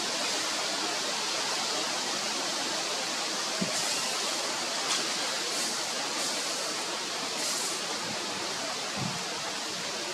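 Steady, even background hiss, with a few brief higher rushes in the middle and a couple of soft low knocks.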